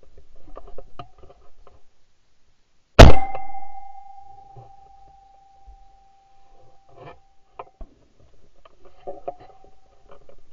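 A single shotgun shot about three seconds in, followed by a steady ringing tone that fades out about four seconds later. Light knocks and rustling of gun handling come before and after the shot.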